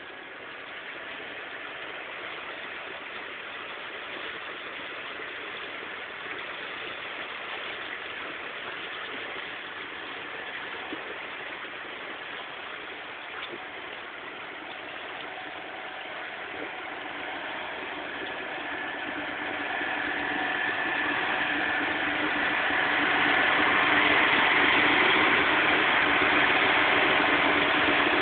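An engine running steadily. It grows louder through the second half, and a steady hum comes in about two-thirds of the way through.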